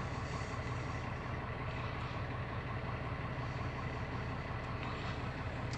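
Steady low hum of an idling vehicle engine, even and unchanging.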